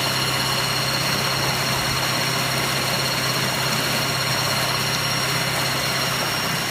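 Torqeedo 1003S electric outboard running steadily under way: a constant low hum with a thin, steady high whine over it. Water hisses along the inflatable boat's hull.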